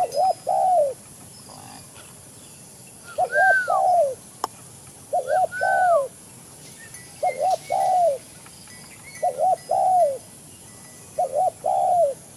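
Spotted dove (tekukur) cooing its repeated three-note call, two quick coos then a longer falling coo, six times at about two-second intervals. Two of the phrases carry an extra higher falling note, and there is one sharp click about four seconds in.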